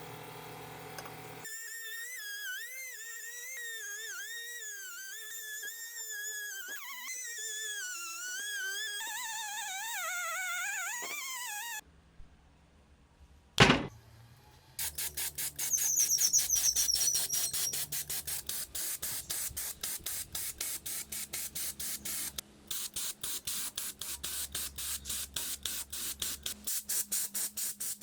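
Background music: a wavering, whistle-like melody that breaks off about twelve seconds in. After a sharp click, a fast, even run of short hissing strokes follows, several a second.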